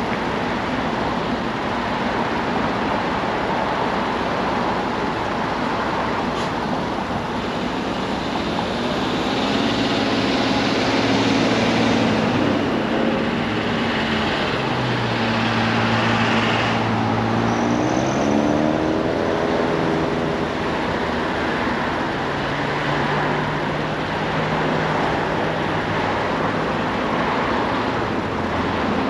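Road traffic at an intersection: a steady wash of tyre and engine noise from passing cars and trucks. From about 8 to 20 seconds in, vehicles pull away with engine pitch rising in steps. A steadier engine hum follows from about 22 to 26 seconds in.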